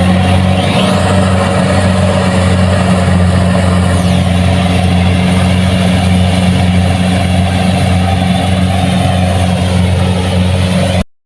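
Kubota DC-70 Plus rice combine harvester running steadily, its diesel engine holding a constant speed with a continuous low hum. The sound cuts out abruptly near the end.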